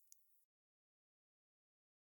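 A wood fire crackles faintly, with a couple of sharp pops in the first half second, then the sound cuts off suddenly to dead silence.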